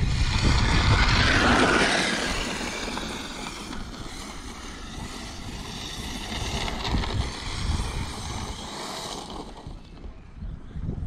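An Arrma Mojave RC truck's brushless electric motor and drivetrain whining under throttle on an 8S battery, the pitch rising and falling with the throttle. Loudest over the first two seconds, then fainter with brief surges.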